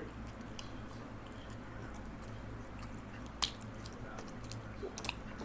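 Quiet chewing and wet mouth sounds close to the microphone, with a few sharp clicks around the middle and near the end.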